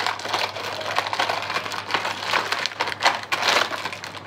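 A tightly sealed, shiny plastic biscuit packet being pulled and torn open by hand: irregular crinkling and crackling, with a louder burst of it about three seconds in.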